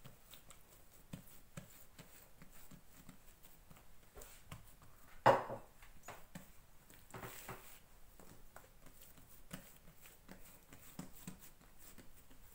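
Hands pressing and patting a round of soft yeast dough flat on a cloth-covered table: many soft pats and small taps, with one louder thump about five seconds in.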